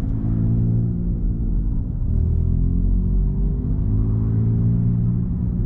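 Engine and road noise heard inside a Smart ForTwo's cabin while cruising: a steady drone whose pitch shifts briefly about two seconds in and then slowly rises.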